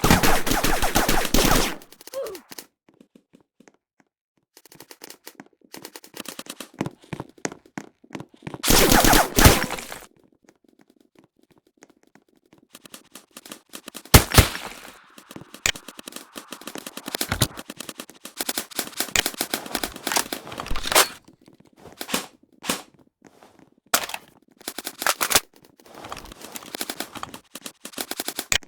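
Airsoft guns firing in rapid full-auto bursts and scattered single shots. The loudest bursts come right at the start and about nine seconds in, with stretches of near quiet between volleys.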